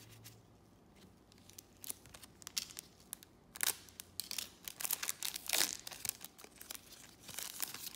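Clear plastic trading-card pack wrapper crinkling as it is handled and pulled open, in irregular crackly bursts that get louder and busier from about three and a half seconds in.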